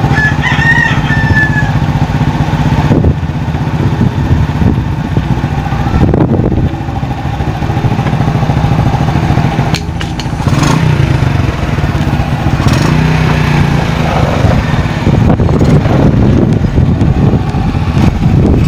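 Old underbone motorcycle's small engine running and revved up briefly several times while its stuck carburetor is worked on. A rooster crows briefly near the start.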